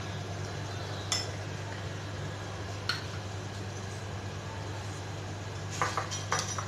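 Metal spoon clinking against a glass mixing bowl: two single light clinks, then quick clinks and scrapes near the end as the spoon starts stirring the chicken marinade. A steady low hum runs underneath.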